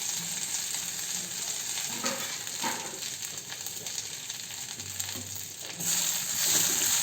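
Thuthuvalai (Solanum trilobatum) leaves frying in a little hot oil in a pan: a steady sizzle that gets louder about six seconds in.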